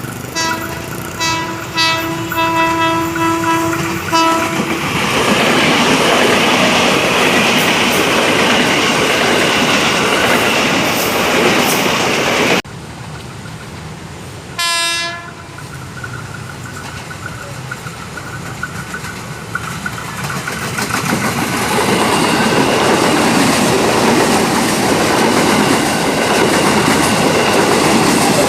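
KRL commuter electric train sounding its horn in a run of short blasts for the first four seconds, then passing with steady wheel rumble and rail clatter. The sound drops abruptly about halfway through, a single short horn blast follows about two seconds later, and the rolling noise of a train builds loud again near the end.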